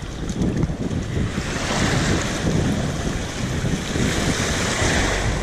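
Small waves washing in over shallow sand at the shoreline, with wind buffeting the microphone. A wave swells and rushes through from about a second and a half in until near the end.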